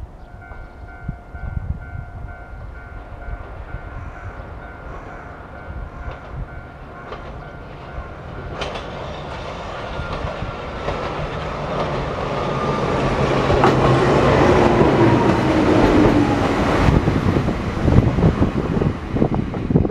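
A Japanese level-crossing bell rings with a steady electronic clang, about two strokes a second. An electric train then approaches and passes, growing loud with wheel and track noise and a motor whine that falls in pitch. Rail-joint clacks come near the end.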